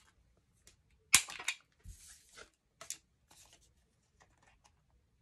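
Handheld corner rounder punch snapping shut through card stock: one loud sharp click about a second in, then lighter clicks and the rustle of the card being shifted in the punch. The punch is new and still stiff, not yet broken in.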